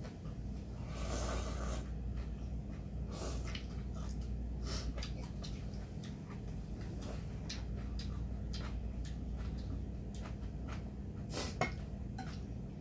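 People eating ramyeon: noodles slurped from the bowl, with a long slurp about a second in and a shorter one after three seconds, amid chewing and chopsticks clicking against metal bowls. A sharp click of chopsticks on a bowl comes near the end.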